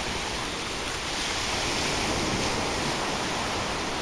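Small waves breaking and washing up a sandy beach on a calm sea: a steady surf hiss that swells a little about a second in.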